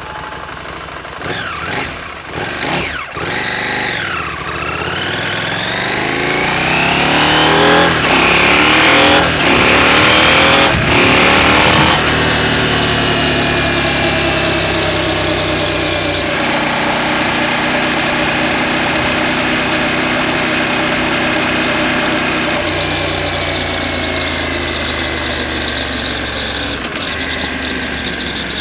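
KTM 790 Adventure's parallel-twin engine rising in pitch under acceleration for several seconds, then running steadily. Near the end it slows with a whine falling in pitch: the deceleration noise that the owner traced to a chain adjusted too tight.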